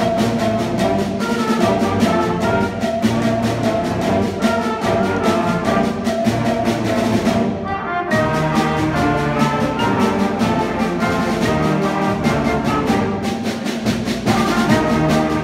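A sixth-grade concert band playing, with trumpets, trombones, saxophones and tubas over a steady beat of percussion strikes. The percussion drops out briefly about halfway.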